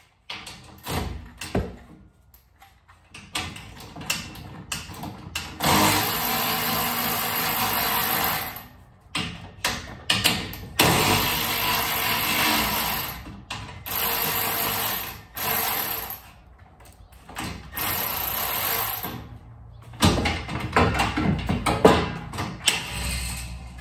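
Cordless power driver backing out the bolts and screws that hold an old garage door track, running in several bursts of one to three seconds, with metal knocks and clicks between.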